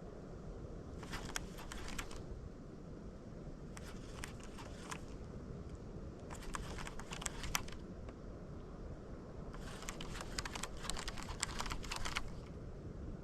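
Shimano Curado baitcasting reel being cranked in four short bursts of rapid clicking, the last and longest lasting about two and a half seconds, as a topwater lure is worked back in. A steady low rumble lies underneath.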